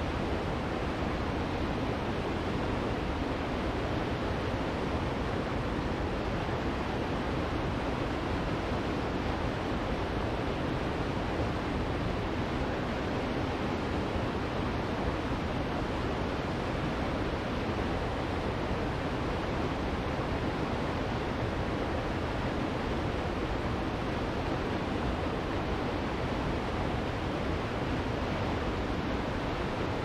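Bald River Falls, a waterfall of about ninety feet, rushing steadily: an even, unbroken wash of falling water, full in the lows and fading in the highs.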